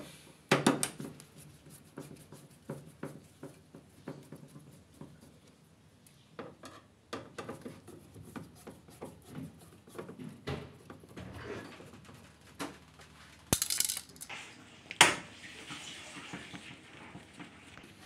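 Scattered clinks, clicks and knocks of hard metal and plastic objects being handled, the loudest about half a second in and two more near the end.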